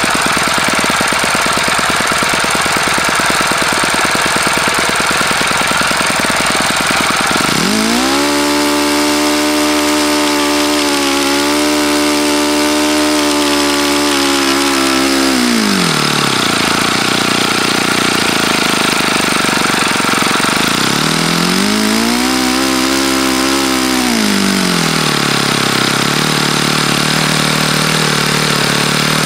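OS FS-48 Surpass four-stroke glow engine swinging a 12x6 propeller, running at high speed, then throttled down to a low speed about 7 seconds in and held there for about 8 seconds before it climbs back up. It drops and rises again briefly near the end. The owner says the engine has bad bearings.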